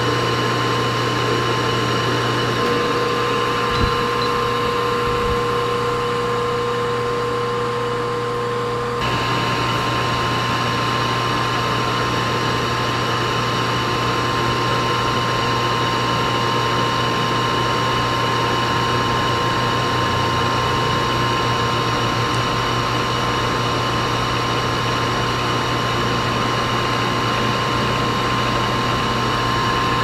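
Milling machine running steadily, its spindle driving a 0.050-inch drill bit down through a plastic Roomba side-brush hub: a constant hum with a steady high whine.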